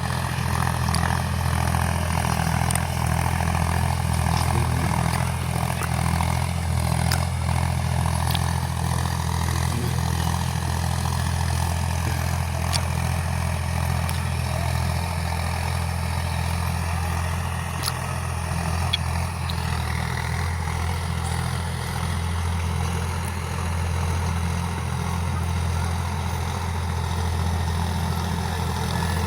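Tractor diesel engine running steadily while tilling a field of dhaicha green manure into the soil, with a few light clicks over the engine.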